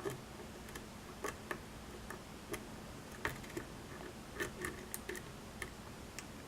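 Faint, irregular small clicks of a hook pick working the pins of a pin-tumbler lock held under tension, pins lifting, setting and dropping.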